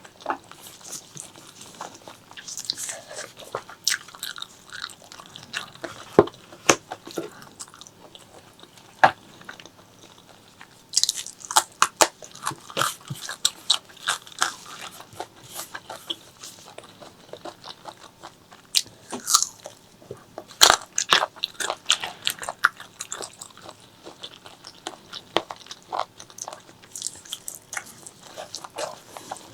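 Close-miked eating of spicy pork leg curry with white rice: chewing and biting with many short mouth clicks, coming in clusters with brief lulls between.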